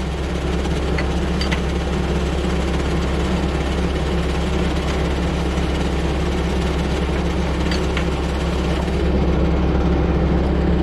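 An engine idling steadily with a low, even drone. A few faint metallic clicks come from a ratchet working engine bolts.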